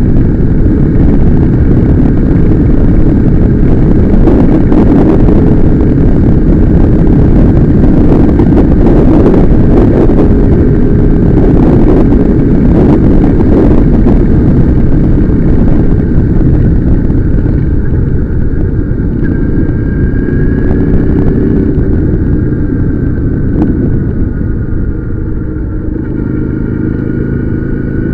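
Motorcycle being ridden on the road: heavy wind noise on the microphone over the steady engine note. Near the end the wind eases and the engine's pitch lines stand out more clearly.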